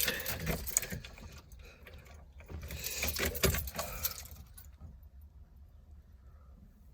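Small metal objects jingling and clinking in two short spells, one at the start and one about three seconds in, then it goes quiet.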